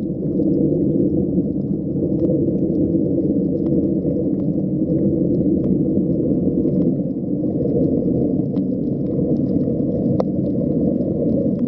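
Steady, muffled underwater rumble picked up by a camera on a shallow coral reef, with scattered faint clicks throughout.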